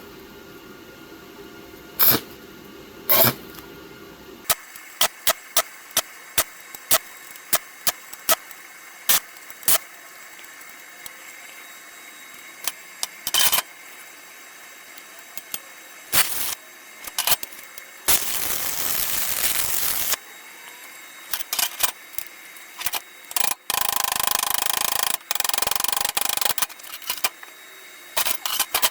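Metal fabrication work on thin-gauge square tube: a long run of short, sharp bursts, then a noisy pass of about two seconds near the middle and a longer steady one of about three seconds towards the end.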